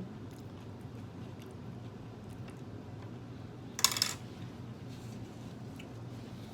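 Quiet handling sounds at a meal: a few faint small clicks and a brief clatter about four seconds in, over a low steady hum.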